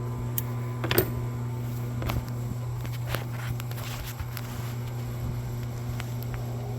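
Steady low hum with a few scattered light clicks and taps from small parts and tools being handled, as a small bolt is fitted by hand.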